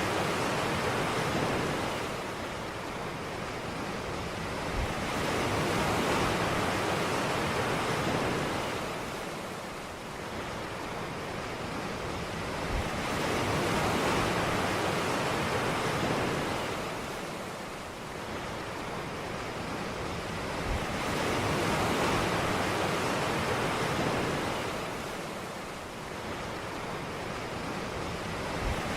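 Ocean surf: waves breaking on a beach, the rushing hiss swelling and fading about every eight seconds. Each new swell opens with a short low thump as the wave breaks.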